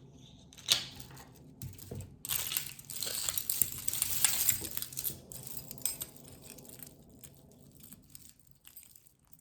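Jewelry and its packaging being handled: a sharp click near the start, then a couple of seconds of crinkling, followed by light scattered clicks as pieces are moved about.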